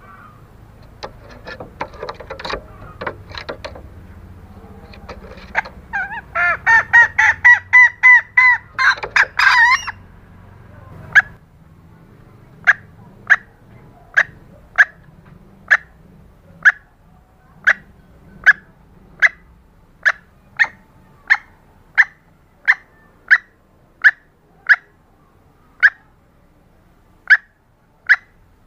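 Junglefowl hen calls used as a hunting lure. Scattered calls come first, then a rapid cackling run of pitched calls about a third of the way in. After that come short single clucks, evenly spaced at a little over one a second.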